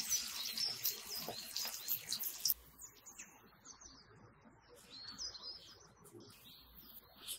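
Fish patties sizzling in shallow frying oil, a steady hiss that cuts off suddenly about two and a half seconds in. Birds chirp in short rising-and-falling calls throughout.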